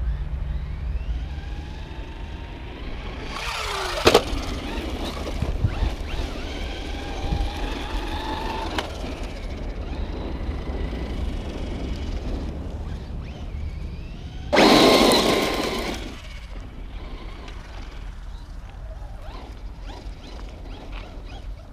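Traxxas Rustler 4x4 RC truck driving on a dirt track, its electric motor whining up and down in pitch as the throttle comes on and off. There is a sharp knock about four seconds in, and a loud rush of sound from about 14.5 to 16 s.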